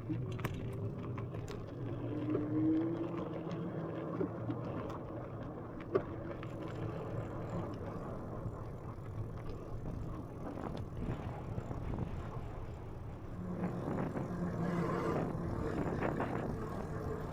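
Electric bike in motion: tyres rolling along the trail and a low hum that shifts in pitch now and then, with small clicks and rattles from the bike.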